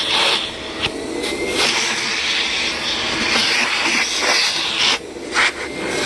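Hoover backpack vacuum running, its hose attachment sucking dust out of a fabric chair's upholstery. The rush of air rises and falls as the nozzle moves over the fabric, with a thin motor whine underneath.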